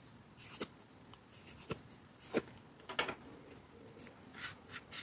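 Thin cardstock being curled over a bone folder and handled between the fingers: several faint taps and clicks of card and tool, then brief rustling of the card near the end.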